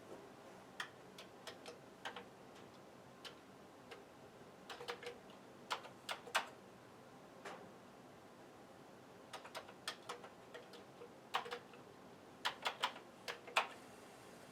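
Keys tapped on a computer keyboard: sharp single clicks, some alone and some in quick runs of two to five, with pauses between.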